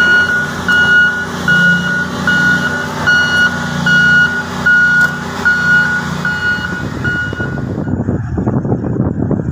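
Back-up alarm on heavy mining equipment beeping steadily, about one beep every three-quarters of a second, over the low drone of a large diesel engine. The beeps stop near the end and a rougher rumbling noise takes over.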